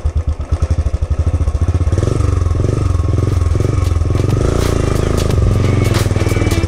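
Royal Enfield Bullet 350's single-cylinder engine running, its separate thumps plain at first, then quickening into a steadier note as the revs rise about two seconds in. Scattered clicks and rattles come over the last few seconds.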